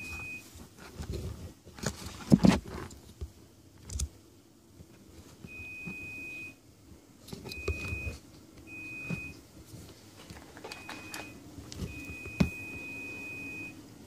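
A continuity tester's steady high beep, sounding about six times in stretches of uneven length, the longest about two seconds near the end, as a tested connection closes. Clicks, knocks and wire rustle of a circuit board being handled come between the beeps, the loudest knock about two seconds in.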